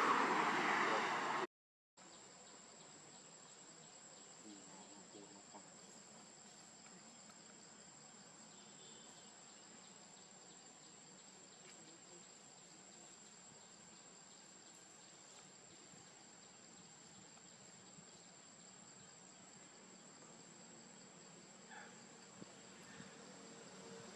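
A brief loud rush of noise that cuts off abruptly about a second and a half in, followed by faint outdoor ambience with a steady high-pitched insect drone and a few faint chirps.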